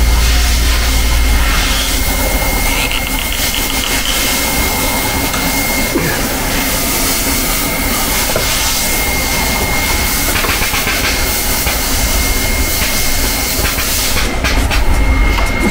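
Steady mechanical hiss with one even high whine from a running inverter spot welder and its water-cooling unit, with a few light clicks from the welding gun being handled in the second half.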